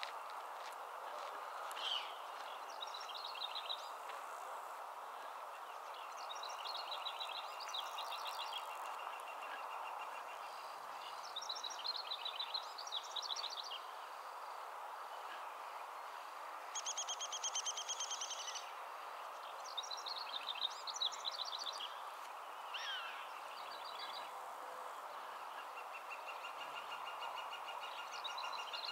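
Birds singing short, rapid trilled phrases every few seconds over a steady background hiss.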